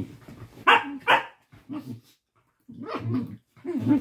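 A Labrador puppy and a Jack Russell terrier vocalising in rough play: two sharp barks close together about a second in, then a run of shorter grumbling growls. These are play noises between two dogs in consensual play, not a real fight.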